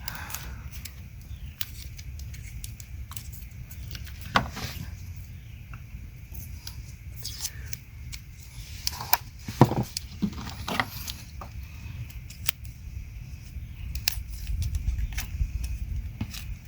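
Scattered sharp clicks, snips and rustles of hand work on the fuel pump wiring connections, the loudest snaps about four and ten seconds in, over a low steady rumble.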